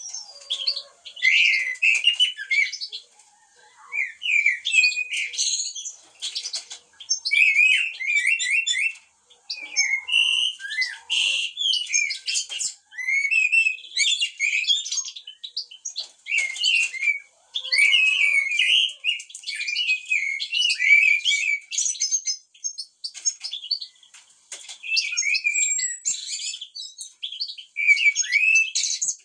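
Eurasian blackbirds and other small songbirds singing and chirping in quick, overlapping twittering phrases, with only brief pauses.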